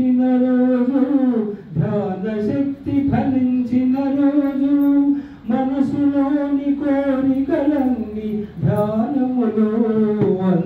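A man singing a Telugu devotional song about meditation, unaccompanied and into a microphone. He holds long drawn-out notes, pausing briefly for breath between phrases.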